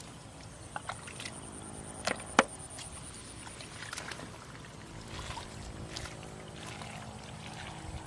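Water splashing and trickling with a few sharp knocks, the loudest about two and a half seconds in, over a faint steady hum.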